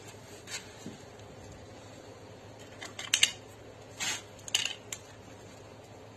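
A few short, sharp clicks and light scrapes of hand tools being handled, the loudest a quick pair about three seconds in, over a faint steady hiss.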